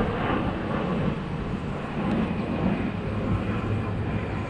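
A-10 Thunderbolt II attack jet flying over, its twin turbofan engines making a steady rumble.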